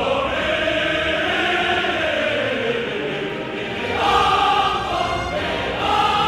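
Choral music: voices holding long notes, swelling louder about four seconds in.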